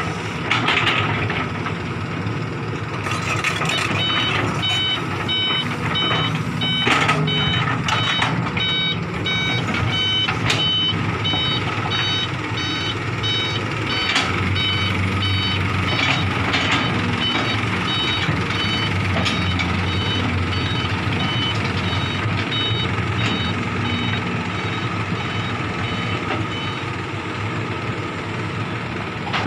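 Dump truck's reversing alarm beeping in a steady, even run as the truck backs into place, over the steady running of diesel engines; the beeping stops near the end.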